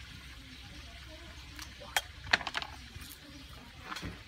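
Water snakes being gutted by hand with a small knife over a metal bowl: faint wet handling sounds, with a quick cluster of sharp clicks about two seconds in and another click near the end.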